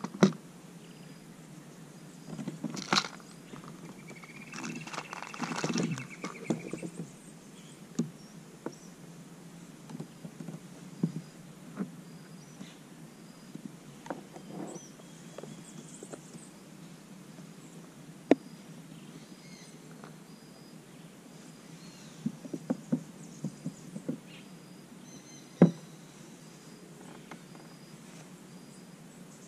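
Paddling a plastic sit-on-top kayak: scattered sharp knocks of the paddle against the hull and light splashing, busiest in the first seven seconds, over faint high chirps.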